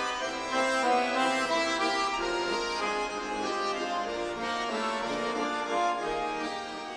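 Bayans (Russian button accordions) playing a lively folk tune together, several notes and chords sounding at once, easing off a little near the end.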